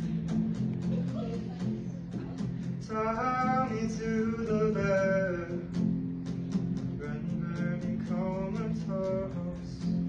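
A guitar strummed in a steady rhythm, with a solo voice singing in, starting about three seconds in and pausing between phrases.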